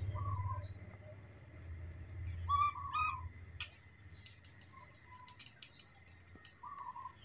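Birds giving short chirping calls several times, loudest about halfway through, over a steady high insect hum.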